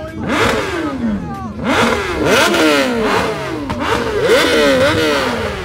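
Several superbike engines revved over and over in quick throttle blips, their pitch sweeping up and falling back in overlapping waves.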